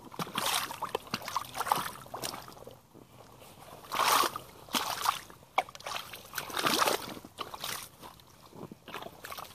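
Feet in rubber waders splashing and squelching through thick mud and muddy water, a series of uneven steps about one a second, the loudest about four seconds in and near seven seconds.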